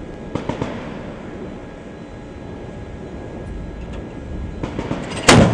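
Steady wind and ship noise with a few sharp clicks, then right at the end a loud, very short burst of gunfire from a shipboard weapon that fades away after it.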